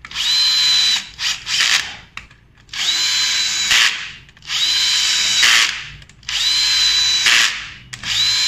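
Cordless drill-driver running the motorcycle clutch's pressure-plate spring bolts in one after another. It runs in bursts of about a second, each a whine that rises as the motor spins up and then holds steady, five in all with a couple of brief blips near the start.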